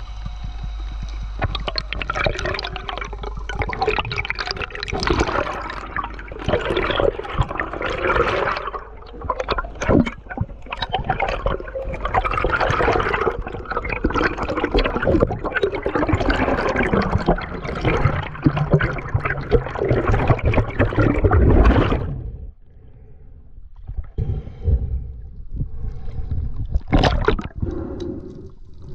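Water sloshing and gurgling close to the microphone, loud and churning, cutting off suddenly about 22 seconds in. Fainter splashes and clicks follow.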